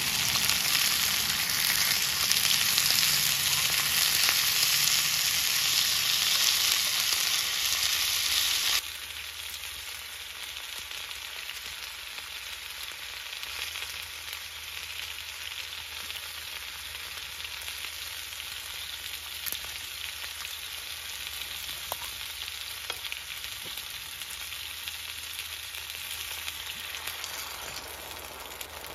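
Chicken thighs and garlic cloves frying in a skillet: a loud, dense sizzle that drops suddenly to a softer, steady sizzle about nine seconds in, with a few faint pops.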